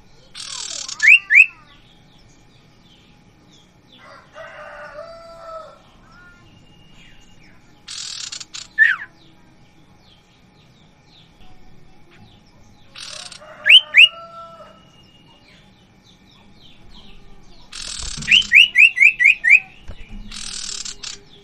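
Caged common ioras calling: short harsh rasping bursts, each followed by loud, sharp whistles that slide downward. The phrases repeat every few seconds, and near the end one phrase has a quick run of five whistles.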